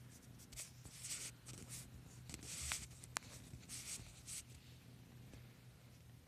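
Fabric rustling and scratching in short, irregular bursts as a cat rubs and paws at a knitted scarf, with two sharp clicks a little under halfway through.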